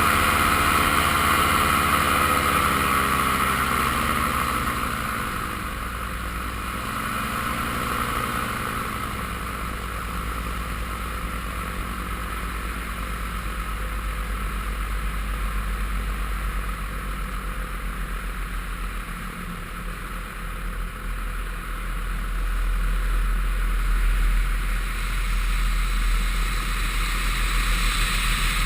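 Paramotor engine and propeller running in flight, the engine's pitch dipping and rising again about six seconds in. After about nine seconds a steady wind rush with low rumble mostly covers the engine, growing louder near the end.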